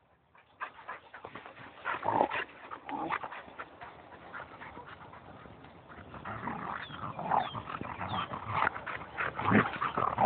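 Two dogs playing, with irregular scuffling and short dog noises that grow busier and louder in the second half, including a few brief high squeaks.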